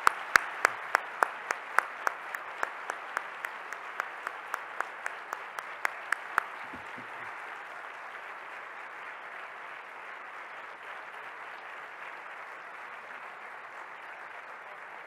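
Audience applauding steadily, with one person's sharp claps close to the microphone at about three a second that stop about six seconds in; the applause then goes on and slowly fades.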